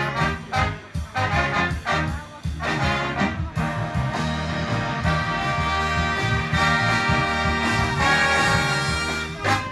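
Big band brass and saxophone section playing live, with short, sharp swing chords about twice a second for the first few seconds, then long held chords.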